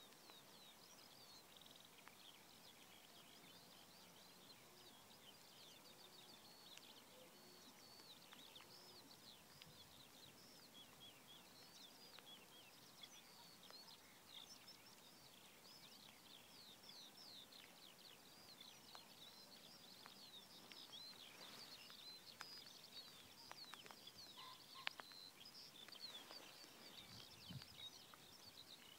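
Faint chorus of small songbirds: many short, high chirps and trills overlapping, with one sharp click about twenty-five seconds in.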